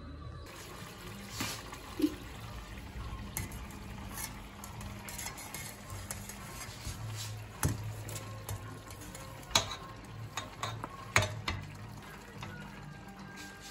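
A wooden spoon scrapes and taps boiled rice out of a perforated stainless steel colander into a stainless steel pot, being layered for a biryani. Several sharp knocks stand out, the loudest about two seconds in and twice near the end.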